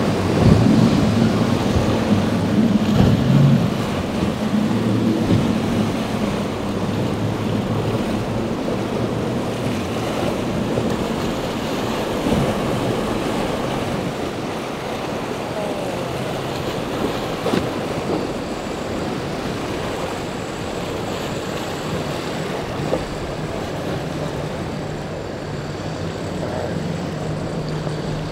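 Outboard engines of center-console boats running through rough inlet waves, over the rush of water and spray and wind buffeting the microphone. The engine note is strongest in the first few seconds, then mostly wind and water, with engine hum rising again near the end.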